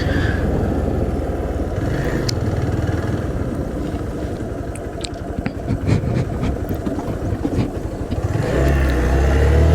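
Hero Xpulse 200T's single-cylinder engine running as the bike is ridden over rough ground, with scattered clicks and rattles. The engine gets louder near the end.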